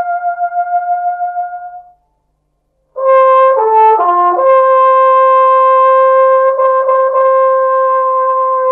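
A single brass instrument playing slow, long-held notes. One note ends about two seconds in; after a second's pause a quick falling run of notes leads into another long, steady note.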